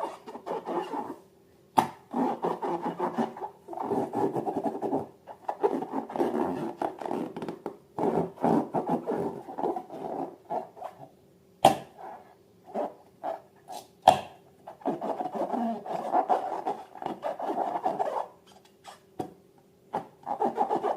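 Slime being worked by hand, giving crackly, squishy rubbing noise in bursts of a few seconds with short pauses between. There are a few sharp clicks, about two seconds in and twice more after the middle.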